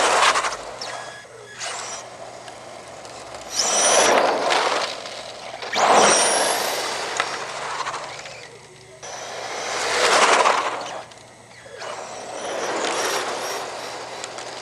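Brushless electric motor of a 1:10 scale RC drag car (5700kV motor on a Mamba Max controller, belt-driven Tamiya 415 chassis) revved in about five throttle bursts while the throttle curve is tested. Each burst is a rush of motor and drivetrain noise that swells and fades, and two of them carry a whine that climbs steeply in pitch.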